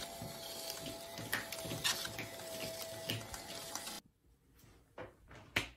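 Film scanner's reel motors running at 12 volts with film travelling fast over the rollers: a steady high whine with a regular ticking about every half second. It cuts off abruptly about four seconds in, leaving a few faint clicks.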